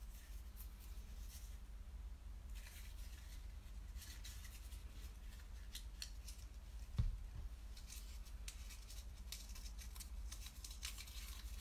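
Faint rustling and light clicking from something being handled close to the microphone, over a steady low hum, with a single soft thump about seven seconds in.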